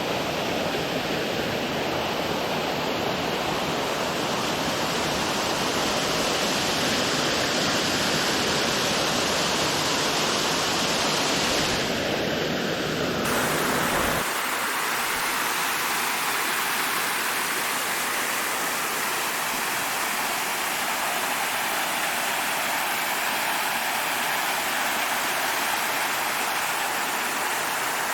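Small creek waterfall with steady rushing water. About halfway through, the rush loses its low rumble and gets brighter.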